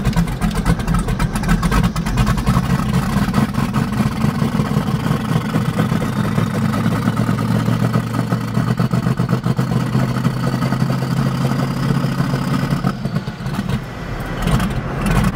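Twin-turbo 5.3 L V8 Silverado pulling under way, heard from inside the cab: a loud, steady engine note with a faint whine rising slowly over several seconds, until the engine note drops off about thirteen seconds in. It struggles a little in first gear, which the owner puts down to the engine running super rich.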